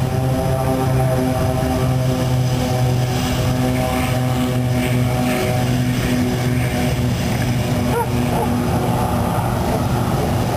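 Aircraft engines running steadily at an airport: a loud, continuous low drone with a hum and overtones. Higher tones in the drone fade out about two-thirds of the way through.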